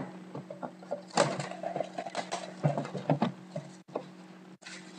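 Hands unwrapping and handling a sealed cardboard box of trading cards: irregular crinkling and rustling of plastic wrap and cardboard with a few small knocks, over a steady low hum.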